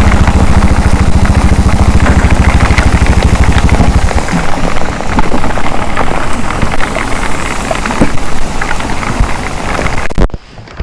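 Motorcycle engine idling with an even low pulse, switched off about four seconds in. Heavy rain then hisses and patters, until the sound cuts off abruptly near the end.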